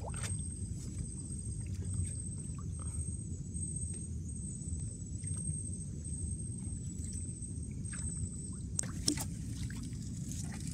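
Small boat on the water at night: a steady low rumble with scattered small knocks and drips. About nine seconds in come a few sharper clicks as the trammel net is hauled over the side. A faint high tone pulses all through.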